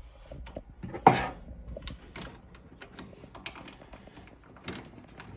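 Light clicks and taps of metal lathe tool post parts being handled, with one louder scraping clunk about a second in.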